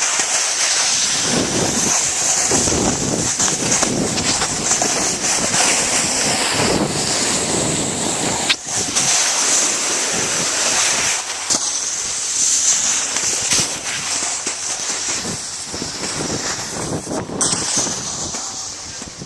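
Steady loud rushing noise of wind buffeting the microphone, with a high hiss over it and one brief knock about halfway through.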